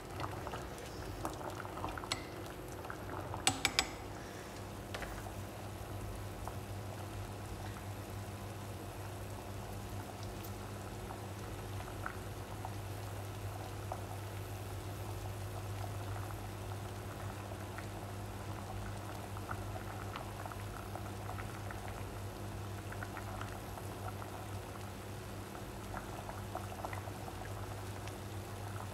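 Pot of water at a rolling boil with sliced green squash in it, bubbling steadily over a steady low hum. A few sharp clicks in the first four seconds as the squash is stirred with chopsticks.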